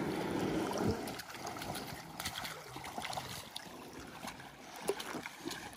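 Shallow river water sloshing and splashing as people wade in rubber boots beside an inflatable boat loaded with a fishing net, loudest in the first second, with scattered small knocks after.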